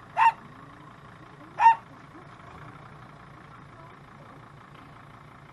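A small dog barking twice, short high yaps about a second and a half apart, over a vehicle engine idling.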